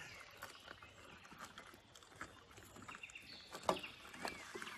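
Faint river water sloshing and lapping around a person standing in the shallows, with small scattered clicks and splashes, one sharper near the end, and a few short high chirps.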